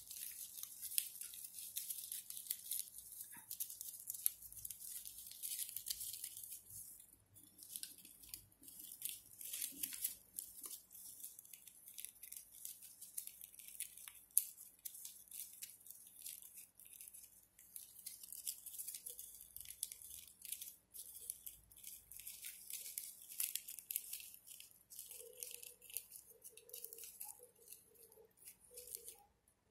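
Satin ribbon rustling and crackling faintly as it is handled and pulled tight through a woven ribbon flower: a steady run of many small scratchy crackles.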